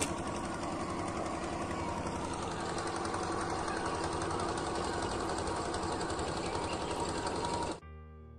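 A small boat engine running steadily with a fine rapid rattle, stopping abruptly near the end, where faint soft piano music takes over.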